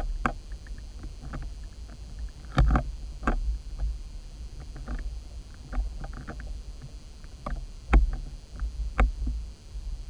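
Muffled underwater sound picked up through a submerged camera housing: a steady low rumble of water with scattered sharp clicks and knocks, the loudest knock about eight seconds in.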